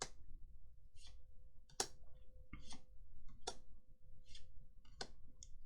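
Trading cards being handled: sharp clicks about every second and a half, with short, soft swishes in between as the cards are slid and flipped over one another.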